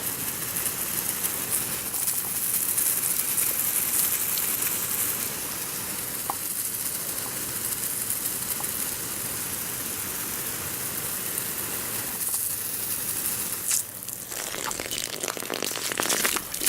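Garden hose spraying water in a steady hiss, easing off about fourteen seconds in, followed by a few scattered crackles.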